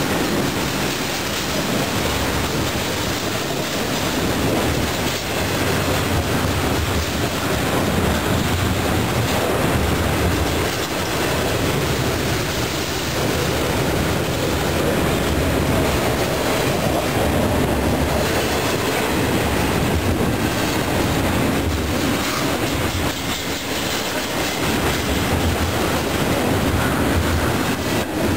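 A BNSF double-stack intermodal freight train rolls past close by at speed. Its container cars' steel wheels make a steady, loud rumble on the rails.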